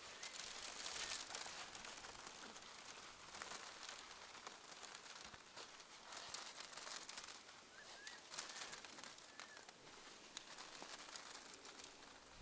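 Handfuls of freshly picked tea leaves rustling and crinkling in soft surges as they are scooped from a bamboo basket and tossed out to spread on mats for sun-withering. A few faint bird chirps come in about eight to nine seconds in.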